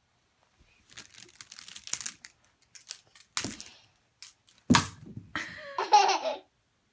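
Clothes hangers rattling and clattering together as a small child handles a bunch of them, with two louder clacks partway through. Near the end comes a short, high wavering vocal sound from the child.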